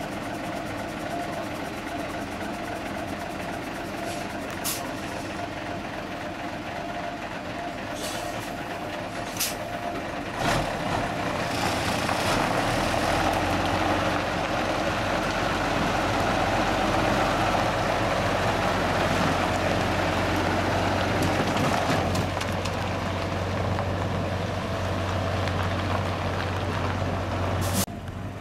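Diesel engine of a classic MAN tipper truck running at idle, with a steady low drone that grows louder about ten seconds in. There are a few short, sharp clicks or hisses in the first ten seconds.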